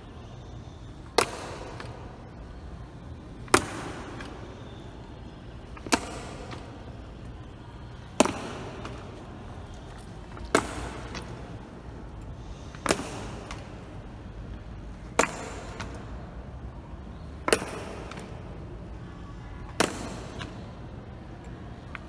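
Honor guards' boots striking a polished stone floor in slow-step march: a single sharp clack about every two and a half seconds, each echoing through the large hall.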